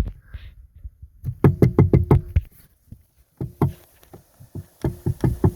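2004 Sea-Doo 3D running with a rapid knocking rattle in three short bursts, the shaking noise that the owner suspects comes from a failing driveshaft carrier bearing.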